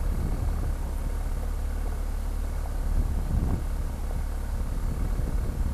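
BMW R1250 GS Adventure's boxer-twin engine running as the motorcycle rides along a gravel road, under a steady low rumble of wind and road noise. The engine pitch rises briefly about three and a half seconds in.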